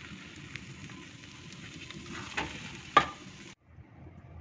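Glutinous rice in coconut milk being stirred and scraped with a spatula in a large stainless-steel pan, with a steady sizzle. The spatula knocks against the pan twice, about two and a half and three seconds in, and the sound cuts out abruptly for a moment near the end.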